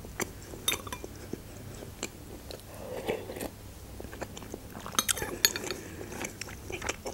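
Close-miked eating: chewing and mouth sounds as borscht is eaten, with a metal spoon scraping and clinking in the bowl. The clicks are scattered, with a denser cluster about five seconds in.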